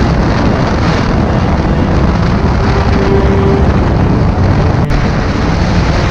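Honda CBR650F's inline-four engine running steadily at highway speed, about 100 km/h, mixed with heavy wind rush over the onboard microphone.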